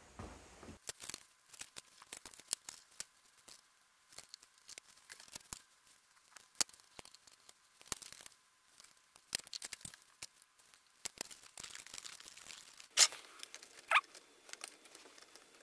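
A thin template sheet crinkling and rustling as it is handled and marked on a steel workbench, with scattered sharp ticks and crackles. A louder clatter comes near the end as the wheel hub is pressed down onto the sheet.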